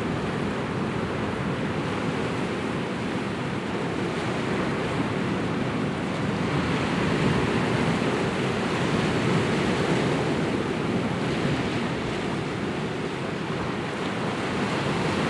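Sea waves breaking and washing over a rocky shore, a steady rush of surf that swells a little around the middle.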